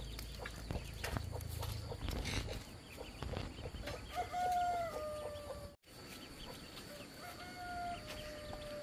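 A rooster crowing twice, each crow a long held call that sinks slightly in pitch at the end, about three seconds apart. Scattered clicks over a low rumble in the first couple of seconds.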